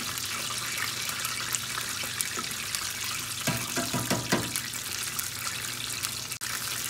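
Chicken drumettes deep-frying in corn oil in a stainless steel pan: a steady crackling sizzle. Between about three and a half and four and a half seconds in come a few short knocks as tongs turn the pieces against the pan.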